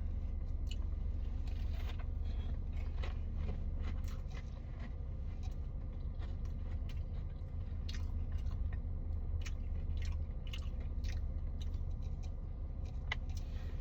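A person biting into and chewing a McDonald's hot honey chicken sandwich, with many short crunches scattered throughout, over a steady low hum.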